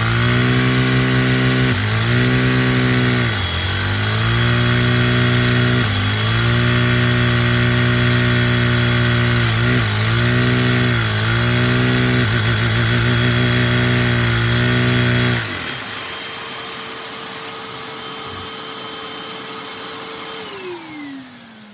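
Lego single-cylinder vacuum engine running fast with a buzzing note, its speed sagging and recovering several times as the transmission's gears are shifted. About two-thirds of the way through it cuts off suddenly, leaving a fainter steady whine that falls in pitch near the end.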